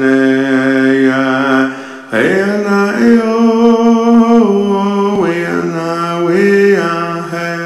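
A man's voice singing an Indigenous prayer song unaccompanied, holding long notes and gliding between pitches, with a short breath break about two seconds in.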